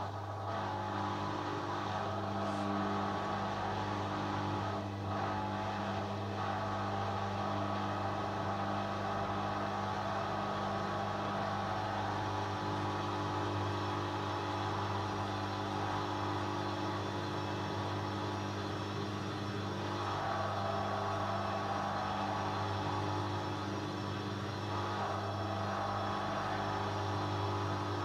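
Hoover Dynamic front-loading washing machine starting its final spin: the drum motor comes in right at the start and the drum runs up to a fast spin. The machine gives a steady hum with several pitches, and the laundry is pinned to the drum.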